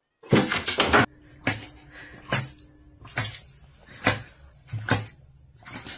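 A dog eating dry kibble messily from a stainless-steel bowl. A quick flurry of clatters comes about half a second in, then single sharp clicks of kibble and metal bowl about every second.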